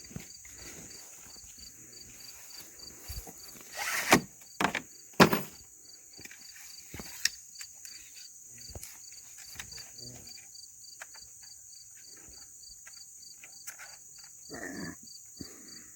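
Crickets chirping steadily in an even pulsing rhythm, with a few loud sharp knocks about four to five seconds in. Near the end a man burps once, a short low belch.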